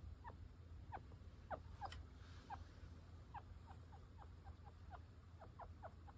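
Chinchilla giving a run of short, faint, falling squeaks, about two or three a second: its complaining call when it dislikes being brushed.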